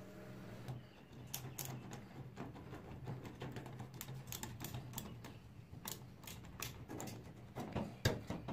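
Hand ratchet driver with a socket tightening the bolt of a scooter's steering-tube clamp, clicking in irregular runs with the loudest clicks near the end.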